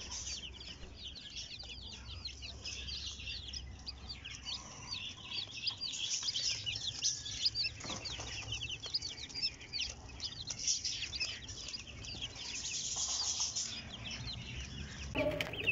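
A brood of chicks peeping continuously: a dense run of short, high, falling cheeps, several a second, from many birds at once.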